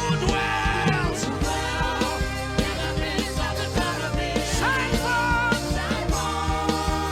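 Worship band music with sustained keyboard chords and a steady drum beat. A voice sings long, sliding notes over it about halfway through.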